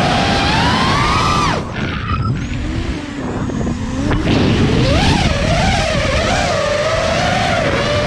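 FPV quadcopter's electric motors and propellers whining, the pitch rising and falling with the throttle. About a second and a half in the whine drops sharply as the throttle is cut, stays low, then climbs back and wavers with quick throttle changes about four seconds in.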